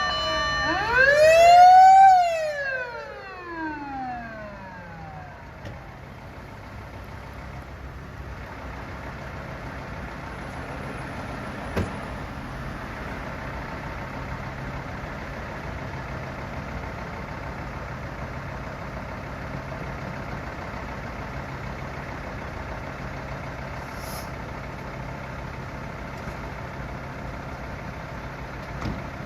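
Emergency vehicle's electronic siren rising once and then winding down over about four seconds, as a siren test ends. After that a vehicle engine runs steadily at idle, with a single click about twelve seconds in.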